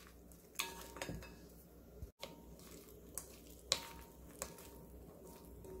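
Wooden spoons mixing seasoned shishito peppers in a glass bowl: faint handling of the food with a few light clicks of wood against the glass.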